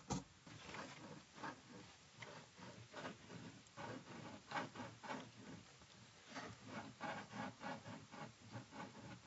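A Sphynx cat's claws scratching and scrabbling at cardboard from inside a box, in irregular short scrapes a few times a second, with a sharper knock at the very start.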